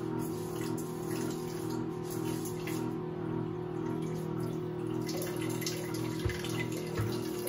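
Water running from a small electric pump on a large drinking-water bottle into a metal pot, over the pump motor's steady hum. Two short knocks come near the end.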